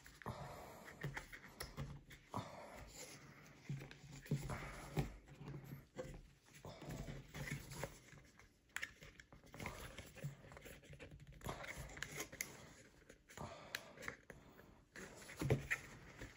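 Thin punchboard cardboard pieces being handled and pushed into slots, giving faint irregular scraping, rubbing and small clicks.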